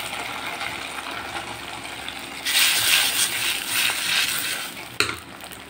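Hot oil tempering of cumin, pepper, ginger, green chilli and curry leaves sizzling as it lands in cooked rice-and-moong-dal pongal. About two and a half seconds in, a louder scraping as a spoon scrapes the tempering ladle clean, with a single knock near the end.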